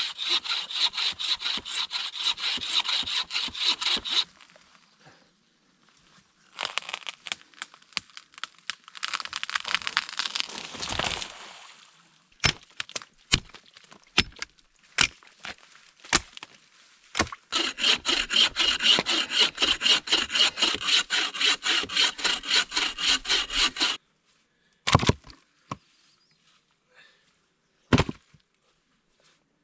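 Bucksaw cutting dead softwood in two long bouts of fast, even back-and-forth strokes. Scattered sharp knocks and cracks of wood come between and after the bouts.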